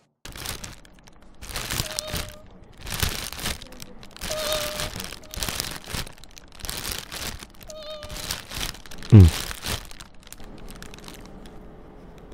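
Plastic snack packets crinkling and rustling in bursts as they are handled out of a woven basket, with a short, loud low thump about nine seconds in.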